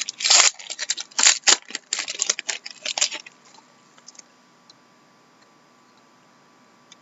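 Trading card pack wrapper crinkling and cards being handled: a quick run of sharp crackles and clicks for about three seconds, then it goes quiet apart from a faint hum.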